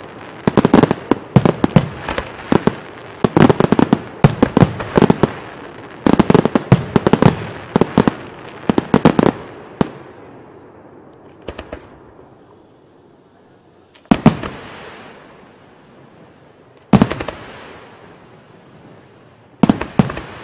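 Aerial fireworks going off: rapid volleys of shell bursts and cracks for about ten seconds, then a lull, then three single loud booms a few seconds apart, each trailing off.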